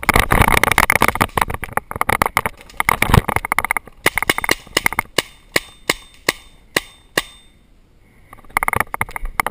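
Close rustling and crackling of brush for the first few seconds, then a string of sharp pops about two a second from a paintball marker firing.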